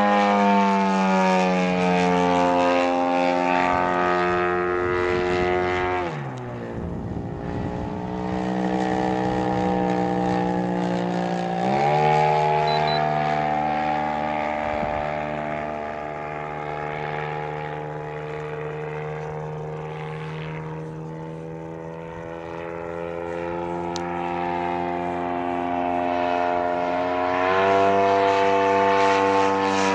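Engine and propeller of a giant 45%-scale Decathlon RC airplane flying overhead, a steady drone whose pitch drops about six seconds in. The pitch climbs sharply about twelve seconds in, the sound fades somewhat in the middle stretch, and it rises again near the end.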